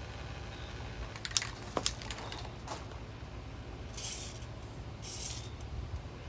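A few light clicks and taps of handling, then two short sprays from an aerosol lubricant can, each about half a second long.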